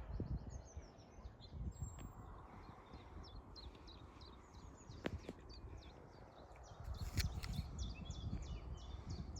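Small songbirds chirping and singing, a rapid run of short high notes that grows busier in the second half, over a faint irregular low rumble. A single sharp click about five seconds in.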